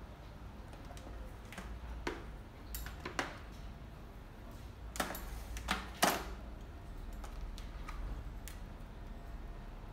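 Scattered light clicks and knocks of plastic being handled: a solar LED bulb, its charging-cable plug and a small plastic-framed solar panel. The loudest knocks come about five and six seconds in, over a faint steady low hum.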